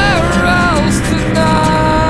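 Rock music with drums. A lead melody bends in pitch, then holds one long note from about halfway through.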